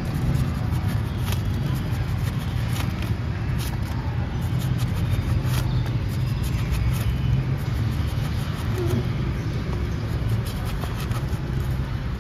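Steady low hum of motor traffic on the street, with scattered sharp clicks and scrapes from a knife cutting through jackfruit flesh.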